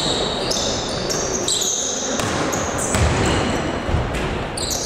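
Basketball bouncing on the court a few times, mostly in the second half, with short high squeaks of sneakers on the gym floor throughout.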